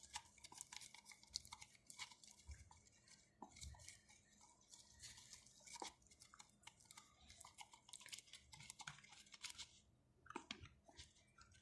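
Faint, sticky clicking and squishing of a wooden stick stirring a tacky homemade slime mixture of glue, shaving foam and liquid soap, with a short pause near the end.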